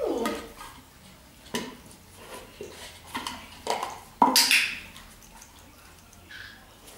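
A small tub being nudged and pushed about by a dog's nose, giving a string of light knocks and clatters, the loudest about four seconds in.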